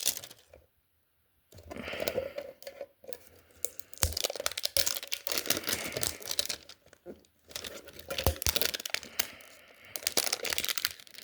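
Foil Pokémon card booster pack wrapper being torn open and crinkled, a run of sharp crackles and clicks broken by a brief pause about a second in.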